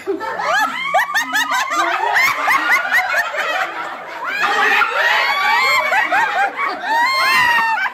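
A group of people laughing together, many voices overlapping, with higher-pitched shrieks of laughter near the end.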